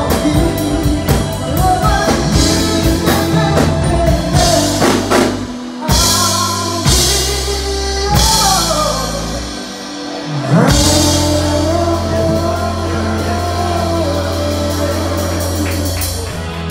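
Live beach-music band playing: lead vocals, drum kit, electric guitar and saxophones, with several hard accented hits and cymbal crashes in the middle. The band then holds one long sustained chord.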